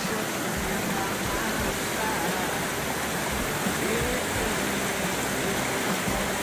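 Small waterfall and creek cascading over rocks into a pool: a steady rushing of water.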